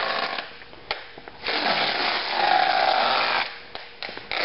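Packaging tape being pulled off the roll in long rasping screeches. One pull ends about half a second in, a longer pull of about two seconds comes in the middle, and another starts near the end.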